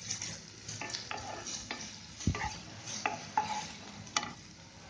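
A wooden spatula stirs and scrapes chopped onions, garlic, ginger and green chillies sautéing in a little oil in a nonstick pan, with a light sizzle and irregular scrapes and clicks. A dull knock comes about halfway through, and a sharp click near the end.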